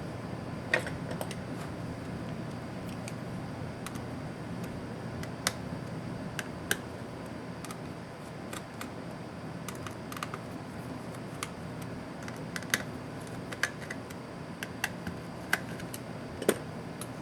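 Irregular small sharp clicks and taps, roughly one a second, of hand tools and the Lenovo IdeaPad S210 laptop's plastic and metal parts being handled during disassembly, over a steady low hum.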